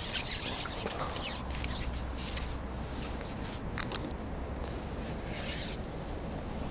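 Soft intermittent rustles and scrapes of fishing tackle being handled while the maggot hook bait on a pole rig is changed: a cluster in the first couple of seconds, then single scrapes near four seconds and between five and six seconds, over a steady low rumble.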